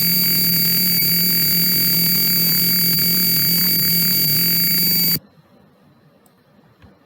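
Arduino-driven piezo buzzer sounding a loud, harsh, steady buzz with a high whine in it, its tone set by the light reading from a light-dependent resistor; it cuts off suddenly about five seconds in.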